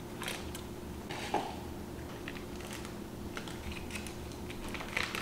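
Foil wrapper of a cream cheese block crinkling faintly as it is peeled off, with a few small scattered clicks, over a low steady hum.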